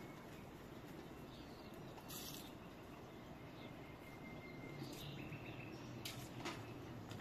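Quiet garden ambience with small birds chirping now and then, and a few short sharp clicks, such as a wood fire crackling under the pot.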